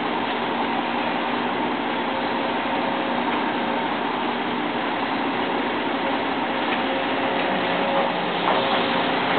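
Sumitomo excavator's diesel engine running steadily under work, with a few light knocks near the end.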